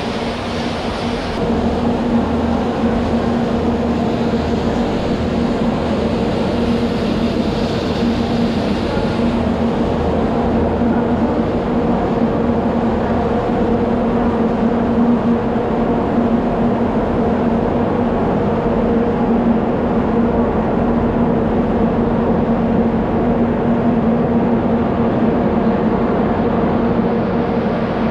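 Steady mechanical hum of station machinery: an unbroken drone with two steady humming tones under a wash of noise.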